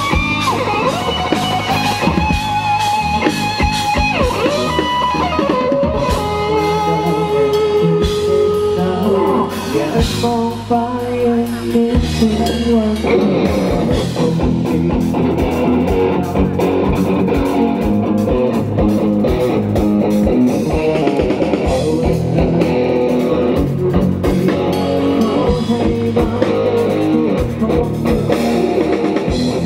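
Live rock band playing: an electric guitar carries a held lead melody with vibrato over bass and drums. About thirteen seconds in, the full band comes in denser and heavier.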